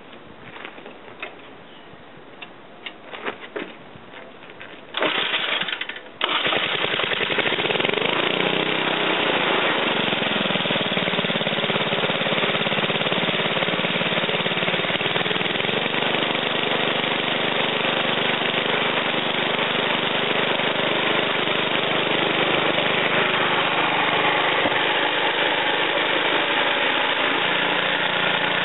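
A homemade 12-volt generator's small single-cylinder, air-cooled engine being started from cold: a few light clicks and taps, a short burst of engine noise about five seconds in, then the engine catches about a second later and runs loudly. Its speed wavers a few times as it settles into a steady run, driving the alternator by belt.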